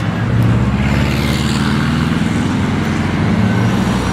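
A motor vehicle's engine running close by with a steady low hum, growing louder about half a second in.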